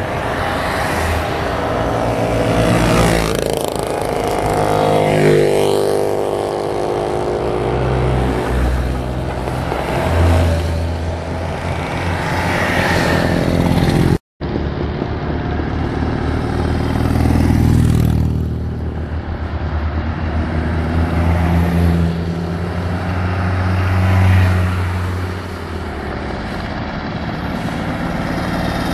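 Old cars and motorcycles, among them a Lada saloon and a sidecar motorcycle, drive past one after another, with engines and tyres heard as each goes by. The engine pitch drops as a vehicle passes a few seconds in, and the sound cuts out for a moment about halfway.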